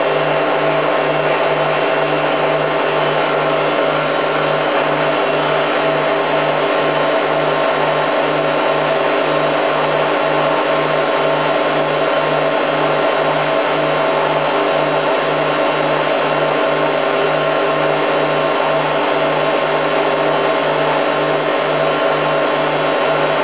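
Hoover Time Manager H130E washing machine running steadily under motor drive, a continuous motor whine over a low hum that pulses about twice a second.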